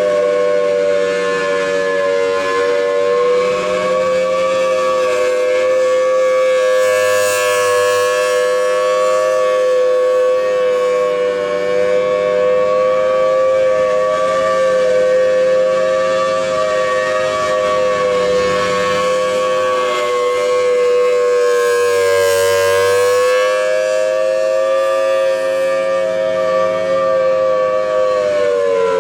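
Federal Signal Thunderbolt 1000T rotating dual-tone warning siren sounding a steady alert chord. It swells louder twice, about fifteen seconds apart, as the turning horn sweeps past, and its pitch shifts slightly, which the uploader calls not a good thing. Near the end the pitch starts to fall as it winds down.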